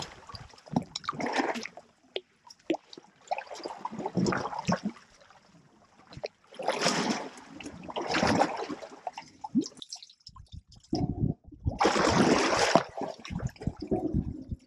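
African elephants wading and drinking in a shallow waterhole: water splashing and sloshing close by in uneven bursts, with a few low knocks in the last few seconds.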